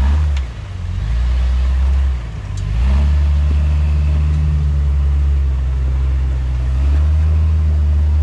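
Jeep engine running at a low, steady pitch, dipping briefly twice and then picking up to a fuller, steady note about three seconds in.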